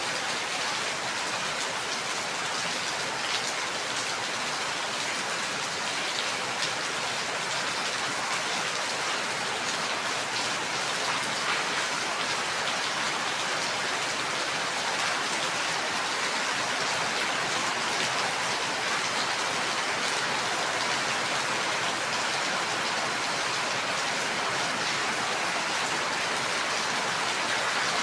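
Steady rain falling, an even hiss with scattered drop ticks on a surface.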